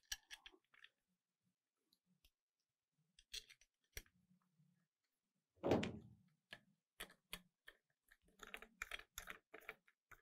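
Faint metal clicks and taps of a hand driver running the backing-plate bolts into a 68RFE overdrive clutch housing, with one louder knock about six seconds in and a quicker run of clicks in the last two seconds.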